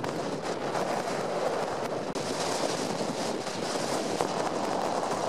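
Strong, gusty storm wind rushing over the microphone, with wind-driven waves churning on the lake. There is a brief drop about two seconds in, after which the noise carries more hiss.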